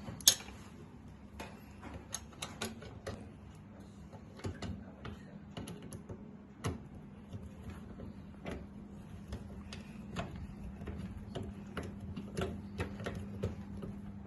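Screwdriver fastening a hard disk drive into a metal PC case's drive bay: irregular small metal clicks and taps, with one sharp click near the start, over a steady low hum.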